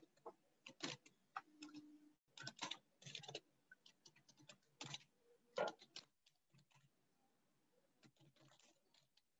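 Irregular, faint clicking of typing on a computer keyboard, with a few louder key strikes, heard through a video-call microphone.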